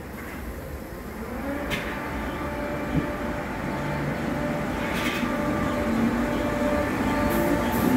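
Class 313 electric multiple unit pulling away from the platform, its traction motor whine rising in pitch about a second in and then holding steady. The train grows louder as it gathers speed, with two sharp clicks along the way.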